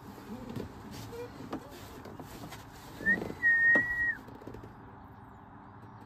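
A single high whistle, held at a steady pitch for about a second, about three seconds in, over a faint steady background hiss.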